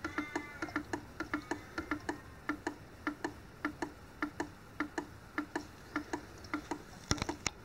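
OI Analytical 9310 online cyanide analyser running its sample-loading step, with steady mechanical ticking at about three ticks a second. A few louder clicks come near the end.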